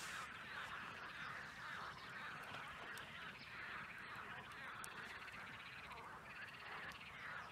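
A dense, continuous chorus of many short animal calls from around the lake, overlapping with no break.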